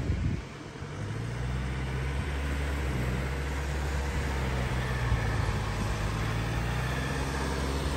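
Car engine running at a steady speed, a low even hum with road noise under it, settling in about a second in.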